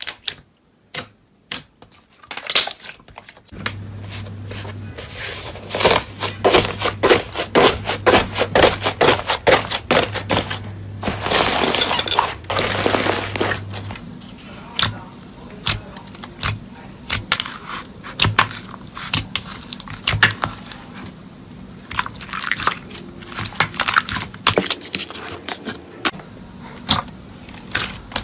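Slime being squeezed and worked by hand, giving dense runs of crackling clicks and pops, busiest in the first half.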